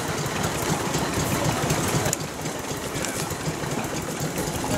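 An engine running steadily with a rapid, even mechanical beat.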